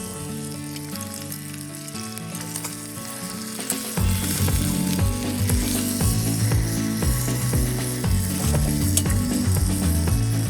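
Food sizzling and crackling over a campfire, with background music whose low notes step along and whose fuller bass beat comes in about four seconds in.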